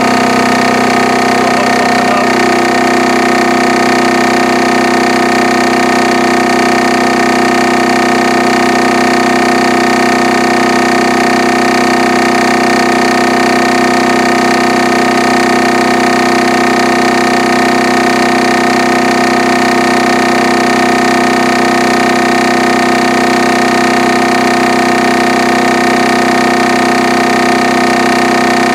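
Military 2 kW diesel generator set running steadily at constant speed, with a slight change in its note about two seconds in.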